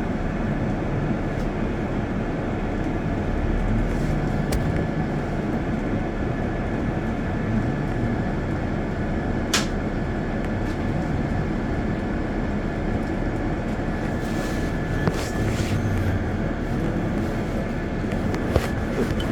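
Steady engine and road rumble inside a moving bus, with a faint steady whine and occasional clicks and rattles, one sharp click about halfway through.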